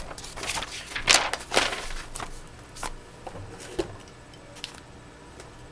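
Paper workbook being handled and its page turned: a run of short paper rustles and rubs, loudest in the first two seconds, then a few fainter ones.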